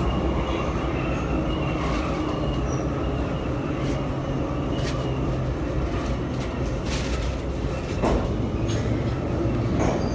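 Em-501-series metro car running, heard from inside the car: a steady heavy rumble with a few sharp knocks scattered through it.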